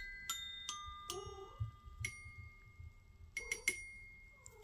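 Clear bell-like notes struck one at a time on a small toy percussion instrument, each note ringing on after the strike. Several notes come close together at first, then fewer and further apart, with a quick cluster of three about three and a half seconds in. The strikes are uneven, like notes picked out by hand, not a set tune.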